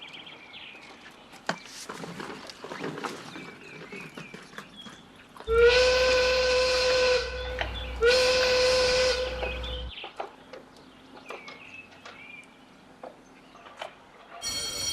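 Train whistle sounding two long blasts a couple of seconds apart, each swelling up in pitch at the start and then holding steady, over a low rumble. Faint chirping runs underneath, and near the end a new steady tone begins.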